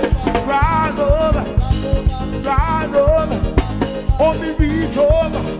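Live band music: a drum kit with cymbals keeps a steady, danceable beat under a gliding melodic lead line.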